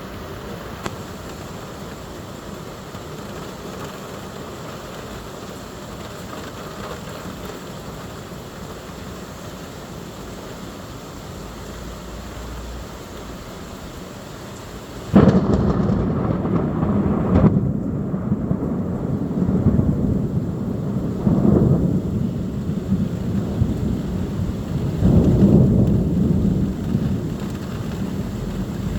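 Steady rain, then about halfway through a sudden loud thunderclap that rolls on as low rumbling thunder, swelling again several times.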